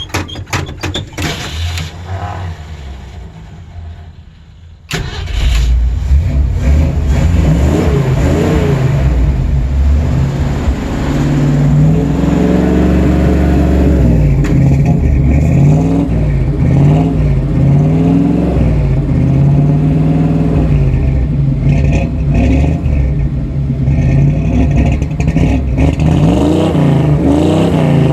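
Old Ford Bronco engine on a hard cold start: a short run of quick clicks, then the engine catches suddenly about five seconds in. It runs loudly, revving up and down again and again as the gas pedal is pumped to keep it going.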